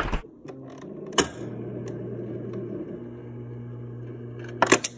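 Refrigerator door ice dispenser running with a steady motor hum after a click. Near the end, a few sharp clinks against a ceramic mug held under the outlet.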